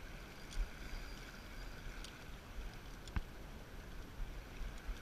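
Shallow river riffle flowing steadily around a wading angler, with a few light clicks, one sharper than the others about three seconds in.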